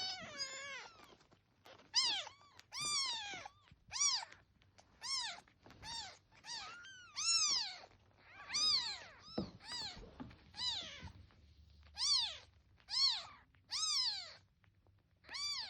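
Kitten meowing over and over, over a dozen high-pitched cries each rising then falling in pitch, about one a second.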